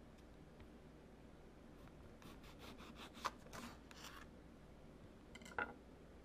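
Kitchen knife slicing through a peeled lemon on a wooden cutting board: a few faint rasping strokes about two to four seconds in, with a sharp tap in the middle and a short knock near the end.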